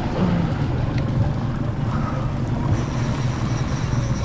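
Twin Yamaha 150 outboard motors running steadily at slow speed, throttled back while a fish is fought, with water rushing in the wake and wind on the microphone.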